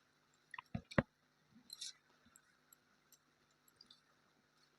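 Quiet eating sounds: a few soft mouth clicks and chewing, with a sharp tap about a second in and a short rustle near two seconds.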